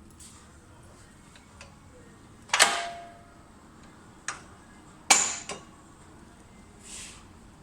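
Mechanism of a PLOW DDP20 high-speed log splitter, run with its cover off: two loud, sharp metallic clanks about two and a half seconds apart, each ringing briefly, with lighter knocks between and after them.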